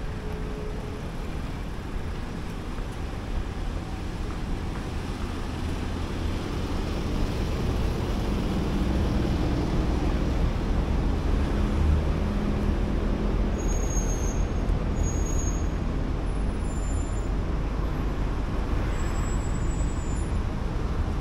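Road traffic going past, swelling louder through the middle as a heavy vehicle passes, with a few brief high squeaks in the second half.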